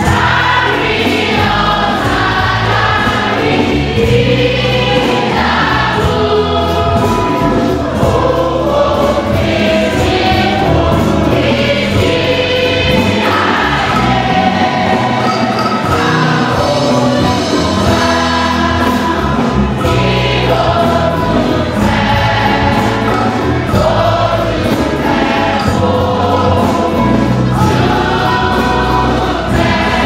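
A large congregation, mostly women and children, singing a Celestial Church of Christ hymn together, loud and continuous.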